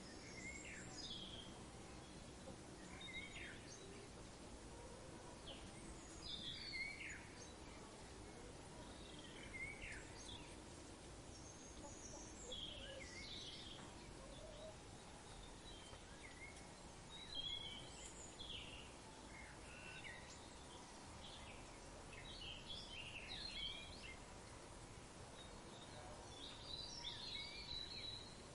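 Birds calling: short chirps and quick whistled glides, several every few seconds, over a steady faint background hiss.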